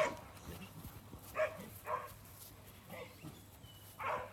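Farm working dogs barking in short calls, about one a second.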